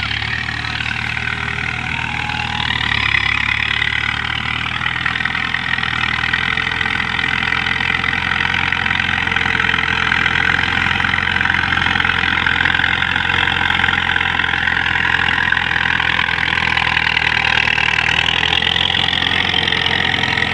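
Al-Ghazi tractor's diesel engine running steadily while the tractor drags a rear blade through sand.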